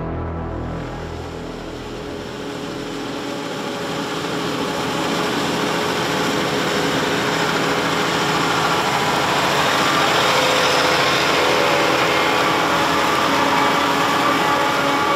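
Heavy harvest machinery running: a dense engine and machine noise that grows louder over the first several seconds, then holds steady.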